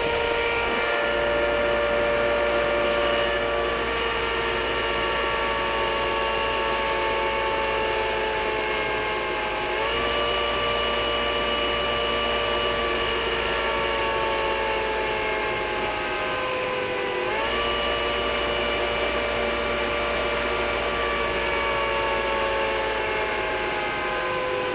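3D-printed dual-tone 8/10-port model siren sounding a two-note chord in imitation of an ACA Hurricane siren. Its pitch sags slowly as the rotor loses speed, then is brought back up sharply twice, about ten seconds in and again about seventeen seconds in.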